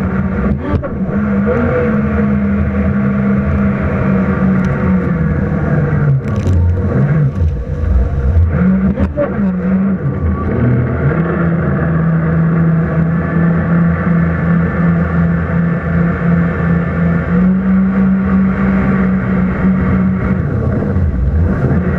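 Jet ski engine running hard, its pitch stepping up and down several times as the throttle is opened and eased.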